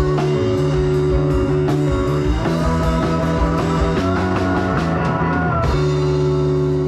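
Live rock band playing the closing bars of a song with guitar and drums. The drums stop a little before the end and the band lets one held chord ring out.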